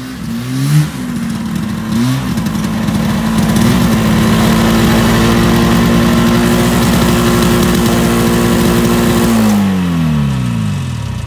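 John Deere 300 snowmobile's two-stroke engine blipped twice, then held at a steady high rev for about seven seconds. It then winds down in pitch as it is shut off.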